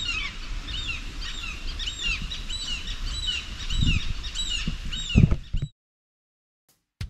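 A crowd of waterbirds calling over and over from the lake, many short shrill calls that rise and fall in pitch. Under them is a low rumble with a couple of dull thumps, and everything cuts off suddenly near the end.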